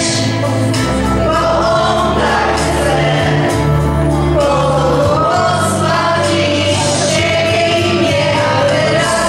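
A group of young singers singing a religious song into microphones, over an instrumental accompaniment of held bass notes that change every second or two.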